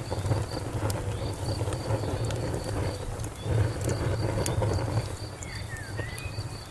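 Wood fire crackling, with scattered sharp pops over a low rumble. A high insect chirp pulses evenly several times a second behind it, and a short faint bird call comes about five seconds in.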